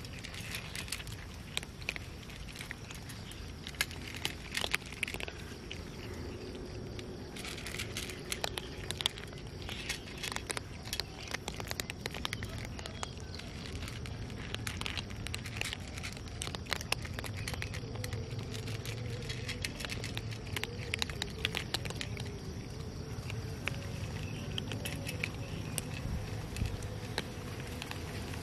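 Several cats crunching dry kibble from a metal plate: a dense run of irregular crunches and clicks.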